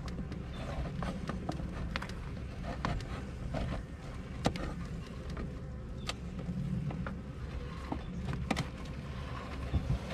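Honey bees buzzing around an opened top bar hive, with a series of sharp wooden clicks and knocks as the top bars are pried and shifted apart; the loudest knock comes about four and a half seconds in.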